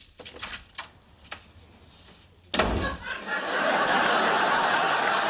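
A few light clicks, then about halfway through a door shuts with a heavy thud. A steady wash of studio-audience laughter follows at once.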